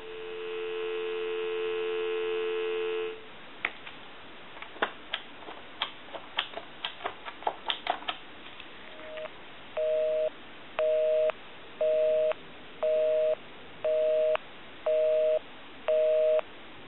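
Telephone line signalling: a steady two-tone dial tone for about three seconds, then a run of clicks while the number is dialed, then a busy signal beeping about once a second, eight times.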